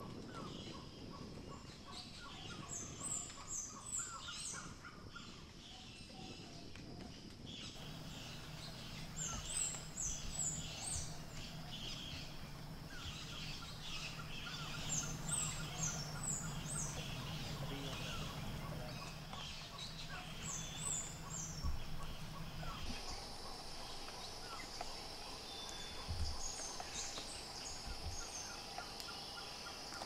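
Wild birds calling in a mixed chorus, one of them repeating a short, high series of quick falling chirps about every six seconds.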